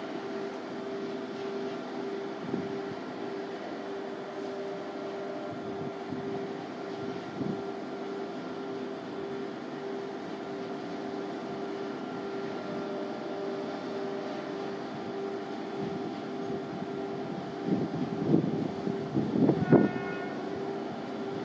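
LNER Class 801 Azuma electric train approaching along the line, heard as a steady humming tone. Gusts of wind on the microphone near the end.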